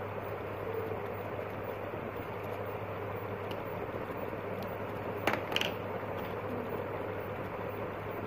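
Steady mechanical background hum and hiss with a constant low drone, and a brief sharp click a little past five seconds in.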